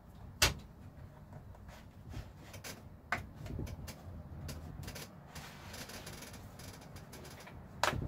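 Plastic pry tool working around the seam of an Asus Vivobook M513U laptop's bottom case, its clips snapping loose: a sharp click about half a second in, another around three seconds, smaller clicks and scraping between, and one more click near the end.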